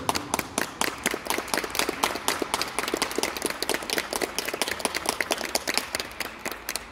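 Audience applauding, with many distinct individual claps, dying away near the end.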